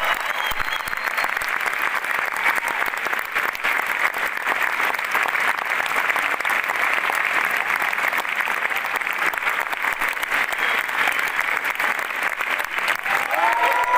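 Large theatre audience giving a standing ovation: dense, steady clapping from many hands.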